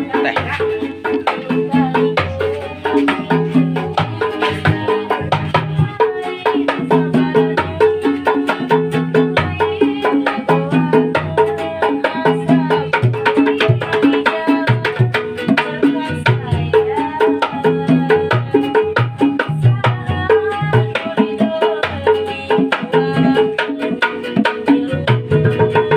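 Music with hand-drum percussion keeping a steady beat under a sustained melody line.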